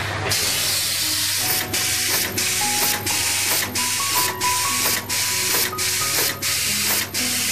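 Automatic through-hole component insertion machine for circuit boards running: a loud hiss that starts about a quarter second in and breaks off briefly about three times a second, over faint background music.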